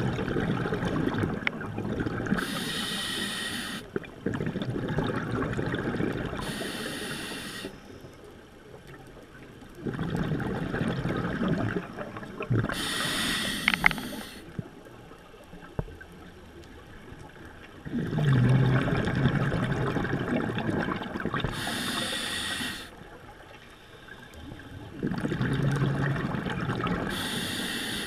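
Scuba diver breathing through a regulator underwater, about five slow breaths. Each has a rush of exhaled bubbles and a short high hiss of the regulator on the inhale, with quieter pauses between.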